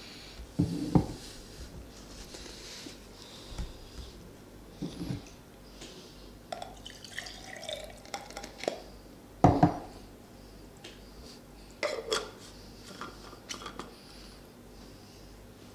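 Scattered knocks and clinks of bottles, glasses and utensils being handled on a table. The loudest knocks come about a second in and again about halfway through.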